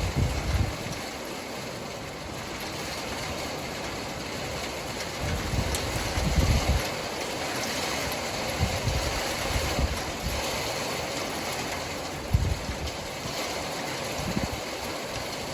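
Hail and rain coming down hard in a steady hiss, with strong wind gusts rumbling on the microphone several times.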